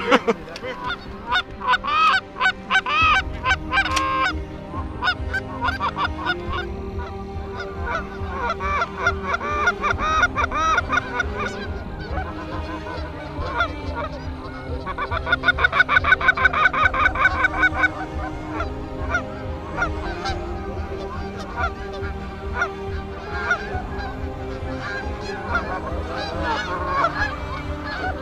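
A large flock of Canada geese honking, many calls overlapping, with a fast, loud run of clucking honks about halfway through.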